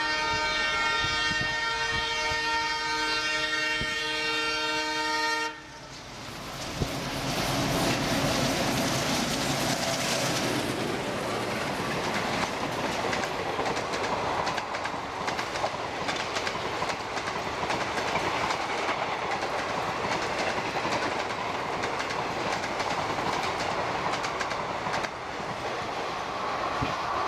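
WDM3A ALCo diesel locomotive's air horn held in one long steady blast, cutting off abruptly about five seconds in. Then the rush and rapid wheel clatter of the express's coaches passing close at full speed.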